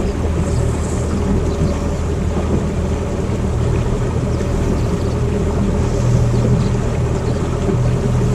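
Boat's outboard motor running steadily with the boat under way, a continuous low engine hum.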